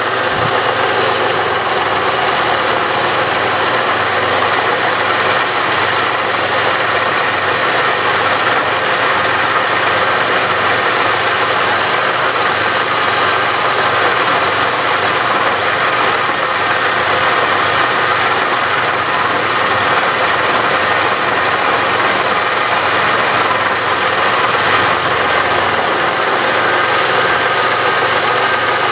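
Milling machine running with a carbide end mill cutting a 5/8-inch groove across a metal block, hand-fed: a loud, steady cutting noise over the machine's hum.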